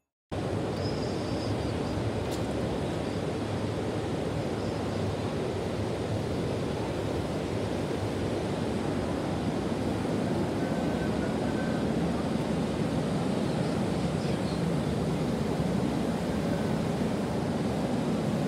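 Steady outdoor background noise, an even rumble without distinct events, starting abruptly about a quarter second in.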